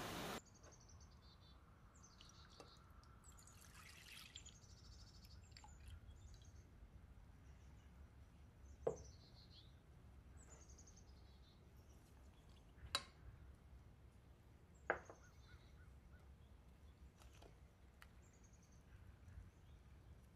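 Faint kitchen sounds: milk poured into a saucepan, then three sharp clinks several seconds apart as ingredients go into the pot. Short high bird chirps recur faintly throughout.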